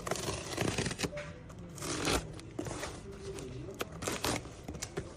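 Irregular crinkling, scraping and clicking handling noises, with a faint steady tone underneath.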